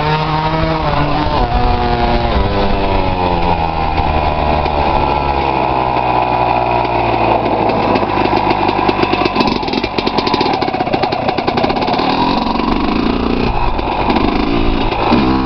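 Honda CR250 two-stroke single-cylinder dirt bike engine being ridden hard off-road, heard close up from a camera mounted on the bike: the revs climb and drop again and again through the gears, hold steadier through the middle, and sweep up once more near the end.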